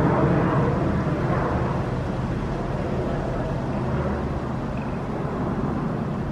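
Commuter train running past on the tracks, a steady heavy rumble that slowly fades a little.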